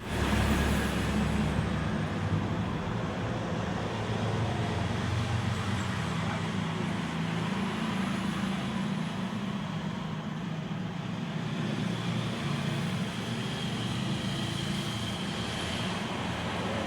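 Homemade brushless DC ceiling fan running steadily on 12 V solar power: a low motor hum with the rush of air from the blades.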